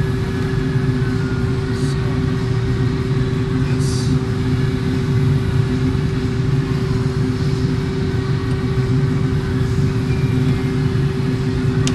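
Steady low mechanical drone with a constant humming tone, unchanging throughout, with a couple of faint light clicks about two and four seconds in.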